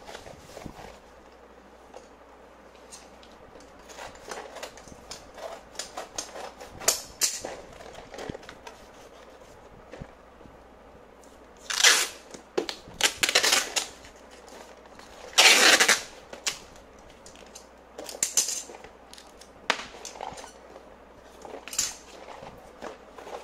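Corrugated cardboard being folded and pressed into a box, with rustles, creases and small knocks. In the middle come a few loud, short rasps of clear packing tape being pulled off its roll to seal the box.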